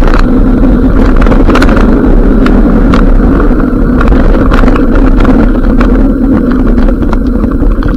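Mountain bike descending a rough gravel and dirt trail: a loud, continuous rumble of tyres over loose stones, with many sharp knocks and rattles from the bike, and wind buffeting the microphone.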